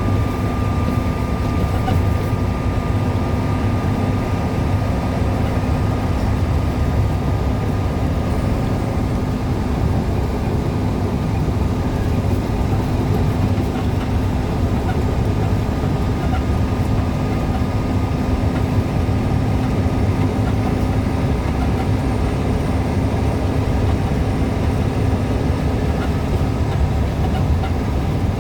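Steady engine and road drone of a diesel truck driving, with a constant low rumble and a steady hum.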